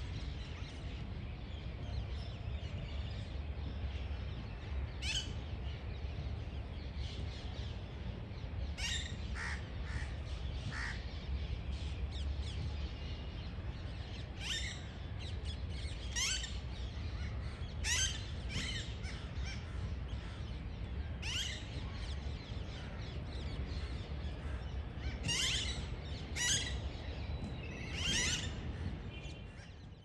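Parakeets in a flock calling with short, shrill screeches, scattered singly and in quick clusters and busiest in the last few seconds, over a steady low rumble.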